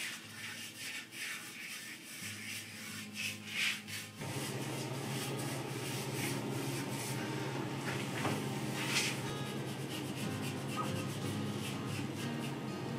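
Paint brushes stroking penetrating epoxy onto white oak slats, a repeated bristle rubbing on wood. From about four seconds in it becomes a steadier, louder wash with low held tones underneath.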